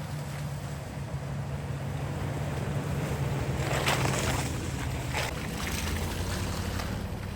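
Toyota 4Runner driving slowly on a snowy forest road, its engine a steady low hum that drops in pitch about five seconds in. Two short bursts of rushing noise come around four and five seconds in.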